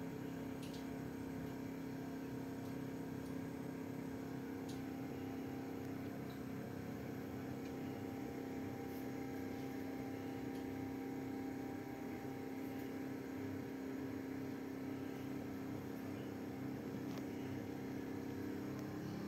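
A steady low electrical hum, unchanging throughout, with no speech.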